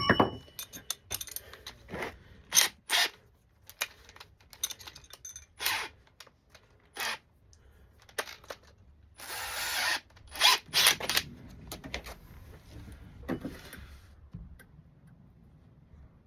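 A power drill with a 25 mm flat spade bit worked in short bursts on a wooden door, with clicks and knocks of handling in between. The longest burst, about a second, comes a little past the middle.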